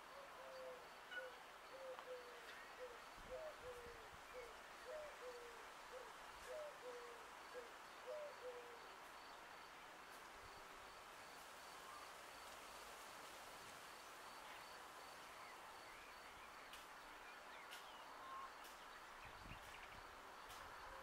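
A bird's short, low hooting notes, faint and repeated about three times a second, stopping about nine seconds in, with faint chirps of small birds.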